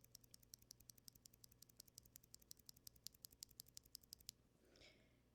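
Stock Everglide Oreo tactile mechanical keyboard switches being pressed and released in a quick, even run of faint clicks, about six a second, that stops a little over four seconds in.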